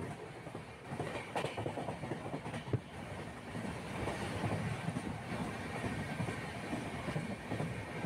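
Continuous rumble of a moving vehicle with irregular rattling and clattering.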